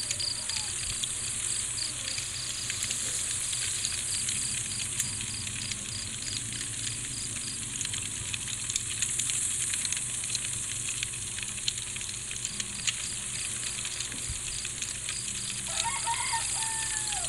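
Night ambience of crickets chirping in an even, pulsing rhythm over a steady high insect hiss, with scattered small crackles. A short bird-like call comes near the end.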